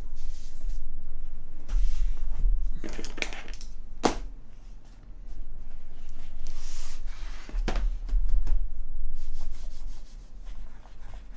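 Handling noises at a desk: rubbing and shuffling, with two sharp knocks, about four and eight seconds in, over a low steady hum.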